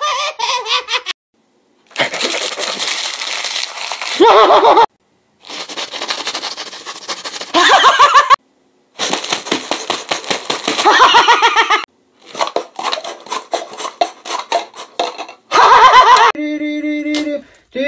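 A run of short clips cut together: stretches of crackling and clattering full of sharp clicks, each ending in a loud wordless yell from a man. Near the end, a steady held tone of a few notes comes in.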